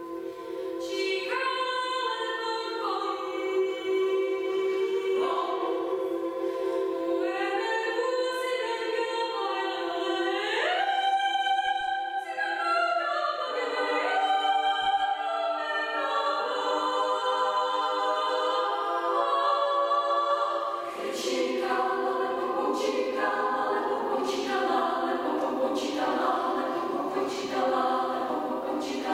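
Women's choir singing an Indonesian folk song a cappella: a low held chord under higher voices sliding between notes. About two-thirds of the way through, lower voices come in and the singing turns rhythmic, with short sharp accents.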